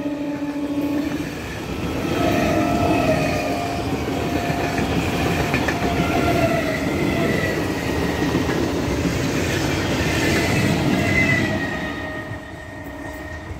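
An electric multiple-unit local train passes close by: the tail of its horn blast dies away in the first second, then a dense rumble and clatter of wheels on rail with a steady high whine over it. The sound fades near the end as the last coach draws away.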